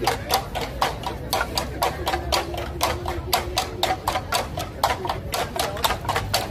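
Bamboo percussion tubes struck with sticks, a quick, steady rhythm of sharp clacks several times a second.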